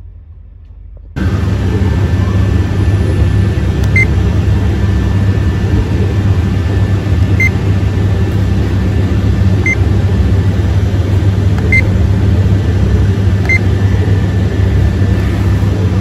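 Texecom alarm keypad giving five short single beeps, a few seconds apart, as its keys are pressed to exit engineer mode. A steady, loud low hum runs underneath from about a second in.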